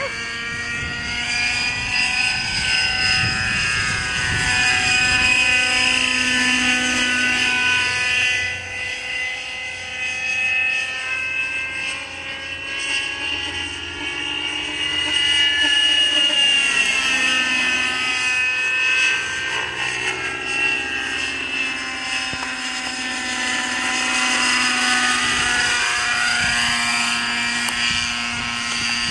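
Radio-controlled Hughes 500 scale helicopter's engine and rotors whining steadily in flight, the pitch swooping up and down again and again as the model passes back and forth.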